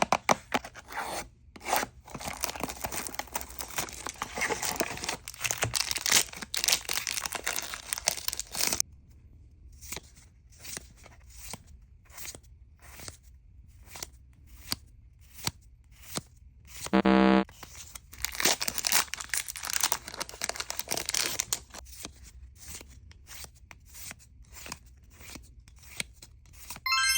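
Foil wrapper of a Pokémon card booster pack being torn and crinkled, then cards handled with a run of separate sharp clicks, and more crinkling later. A short pitched tone, the loudest sound, comes about two-thirds of the way through.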